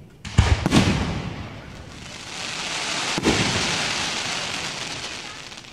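Fireworks bursting close by: two loud bangs in quick succession near the start, then a long spell of dense crackling that swells and fades over a few seconds, with another sharp bang about three seconds in.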